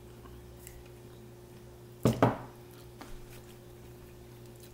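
Two quick knocks on the table, a fraction of a second apart, about two seconds in, such as a bottle being set down, over a faint steady hum.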